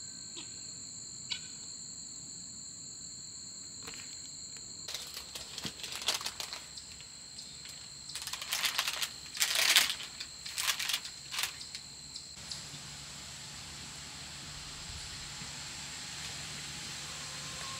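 Parchment paper crinkling and rustling in a run of short bursts as a baked loaf is lifted out of its metal loaf pan, loudest about ten seconds in. Steady insect chirring carries on beneath.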